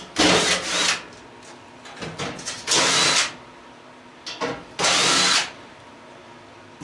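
Power drill running in short bursts, three main ones with a few brief blips between them, as it backs screws out of the stove's sheet-metal panels during the teardown.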